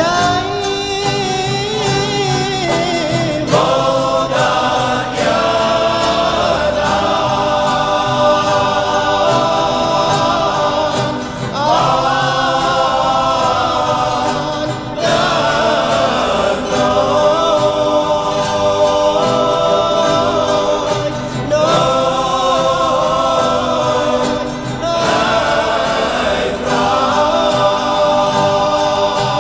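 Cape Malay male choir singing a nederlandslied: a lead voice carries long, ornamented phrases with the choir singing alongside, over banjo accompaniment. The singing comes in held phrases with short breaks between them.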